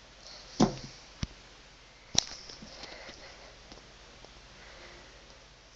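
A few short knocks and thumps from a plastic fashion doll being handled and thrown down onto a carpeted floor: a loud knock about half a second in, a duller thump just after, and a sharp click about two seconds in.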